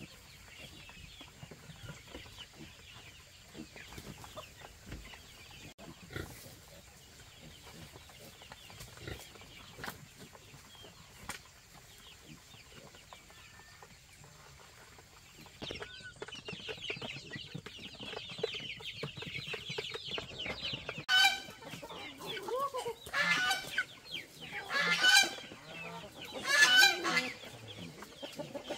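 Chickens: soft high cheeping from young birds at first, swelling about halfway into a dense chorus of cheeping and clucking, with four loud drawn-out chicken calls near the end, about two seconds apart.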